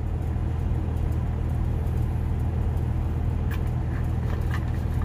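Steady low drone of an idling truck engine. Near the end come a few short plastic clicks and crackles as a water bottle is handled and its cap screwed on.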